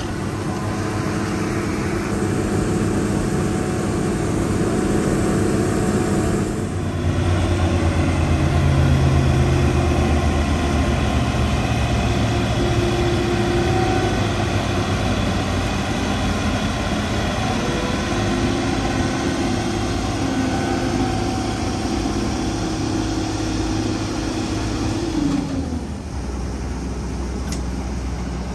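Fiatagri 3350 AL combine harvester running steadily, its engine and threshing machinery droning. Near the end a tone slides down and the sound drops a little.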